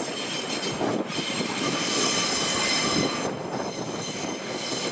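Empty container flat wagons of a freight train rolling past, their steel wheels squealing high-pitched over a rumble of wheels on rail. The squeal is loudest a couple of seconds in, then eases off.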